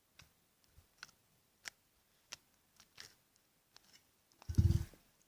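Slime being squeezed and stretched by hand, giving scattered small sticky clicks and pops. About four and a half seconds in comes a louder, brief squelch with a low thump.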